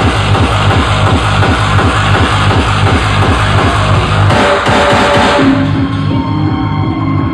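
Loud electronic dance music with a fast, steady bass-heavy beat. About two-thirds of the way through, the dense sound thins out and held synth notes come in over the beat.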